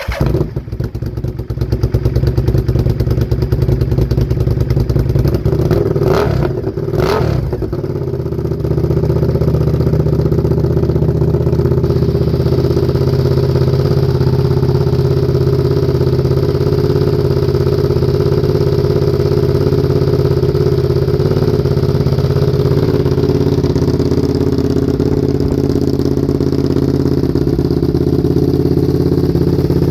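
Honda RC51 SP2's 999 cc 90-degree V-twin running through its exhaust, with sound coming in suddenly at the start. It is blipped twice, about six and seven seconds in, then settles into a steady idle.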